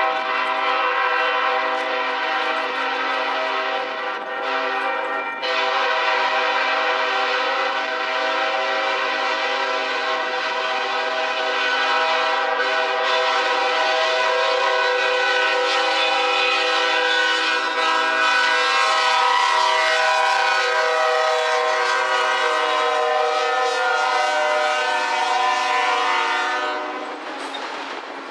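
Union Pacific lead locomotive's multi-tone air horn sounding in long, loud held blasts as the train approaches and passes, with a brief break about four seconds in and a drop near the end.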